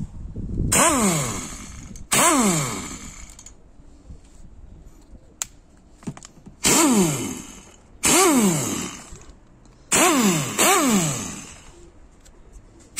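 Parkside PDSS 310 B5 air impact wrench run free with no socket fitted, in six short trigger pulls grouped in three pairs. Each pull is a rush of compressed air with the motor's whine, which falls in pitch as the motor spins down once the trigger is let go.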